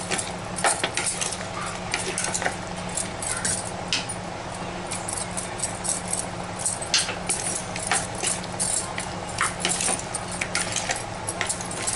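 A metal spoon stirring chunks of chicken in a thick spice marinade in a plastic bowl: irregular clicks and scrapes of the spoon against the bowl, over a steady low hum.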